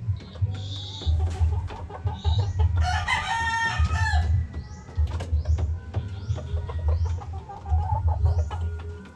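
Chickens calling at the coop, with one long rooster crow about three seconds in and shorter clucks later. Scattered sharp clicks run through it.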